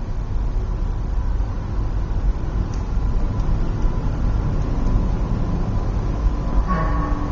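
Airbus A380's Rolls-Royce Trent 900 engines running at takeoff power: a loud, steady, deep rumble with a thin steady whine above it. A brief tone sounds near the end.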